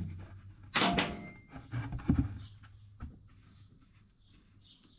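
Metal tools being handled on a steel rotary cutter: one sharp metallic clank with a short ring about a second in, then two duller knocks and a light click, fading to quiet.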